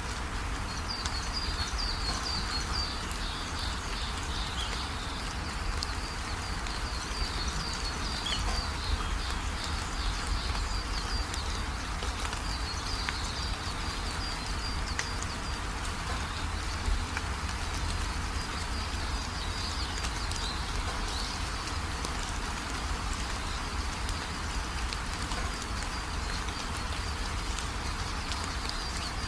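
Small birds chirping in quick repeated runs over a steady hiss.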